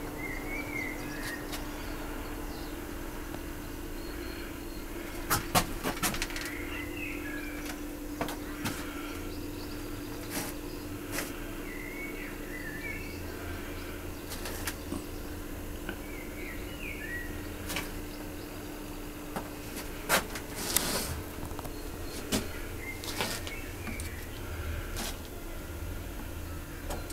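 Small birds chirping in short phrases every few seconds over a steady low hum, with scattered sharp clicks and knocks, the loudest about five seconds and twenty seconds in.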